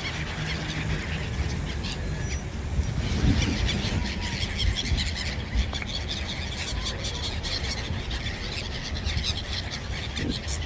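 A large flock of gulls calling, many short cries overlapping throughout, over a steady low rumble.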